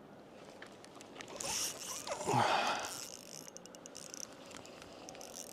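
Fishing reel working against a hooked fish: a loud rush of drag or line noise about a second and a half in, then runs of rapid ticking from the reel.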